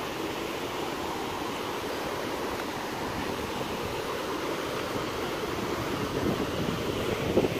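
Swift, silty river rushing over rocks: a steady roar of moving water that grows a little louder near the end.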